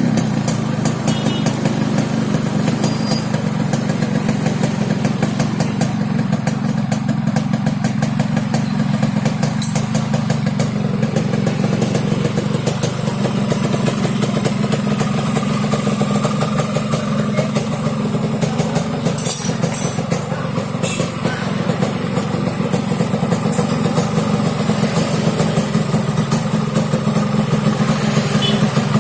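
Yamaha RX-King's two-stroke single-cylinder engine idling steadily, with its exhaust giving the low, raspy 'ngorok' (snoring) note.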